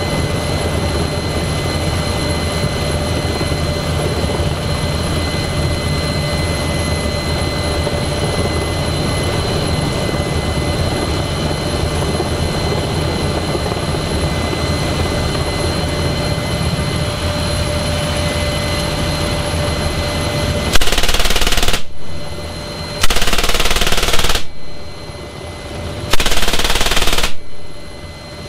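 Inside an NH90 transport helicopter's cabin, the steady rotor and turbine noise with a high whine runs on, then about three-quarters of the way in an M3M 12.7 mm (.50-calibre) heavy machine gun fires three bursts of a second or so each, a second or two apart.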